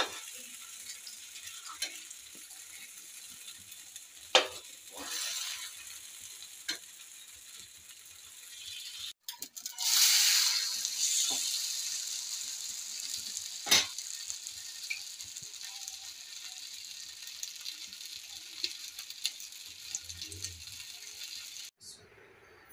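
Egg-and-flour batter frying in a non-stick pan: a steady sizzle, with a few sharp taps of a metal spatula against the pan. The sizzle drops out briefly about nine seconds in and comes back louder.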